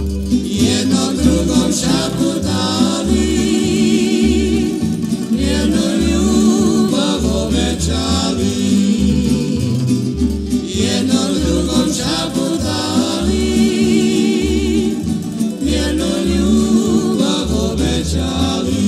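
Tamburitza orchestra playing a Croatian folk song, with voices singing together over plucked strings and a pulsing bass.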